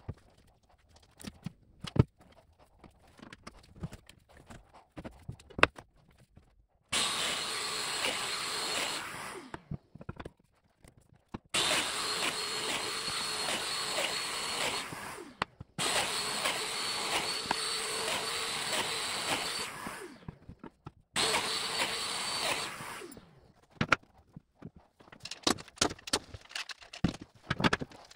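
Festool Domino joiner running in four separate bursts of a few seconds each, cutting mortises in oak, each run winding down after it is switched off. Clicks and knocks of the tool and boards being handled come before and after the runs.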